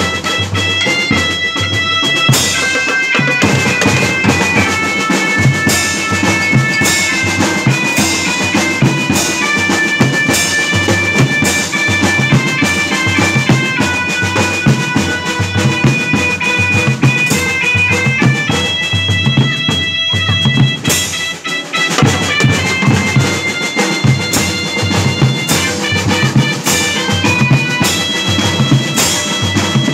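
Children's school drum band playing a pop tune: a melodica carries the melody in held, reedy notes over marching snare drums and bass drums beating a steady rhythm, with a brief break in the melody about two-thirds of the way through.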